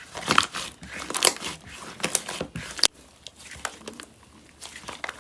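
Slime being squished and pressed by hand, giving a run of irregular crackling and popping clicks.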